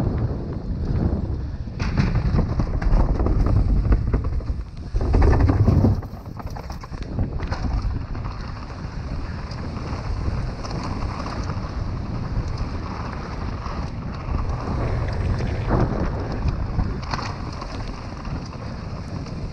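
Downhill mountain bike ridden fast down a rough dirt trail: heavy wind buffeting on the microphone over the rumble of tyres on dirt and stones, with frequent knocks and rattles from the bike over bumps. It is loudest in the first six seconds, then settles to a steadier rush.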